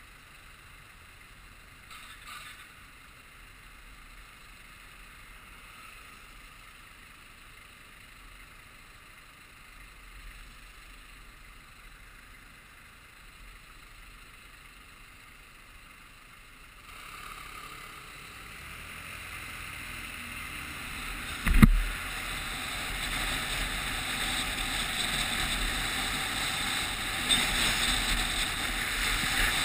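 Muffled motorcycle ride noise: faint and steady while the bike is stopped, then from about halfway a rising rush of wind and road noise as it pulls away, with one sharp thump a few seconds after it starts moving.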